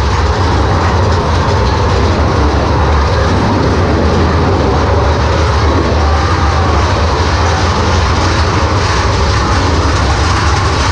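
Mine-train roller coaster running through a rock tunnel: a loud, steady rumble of the train on its track.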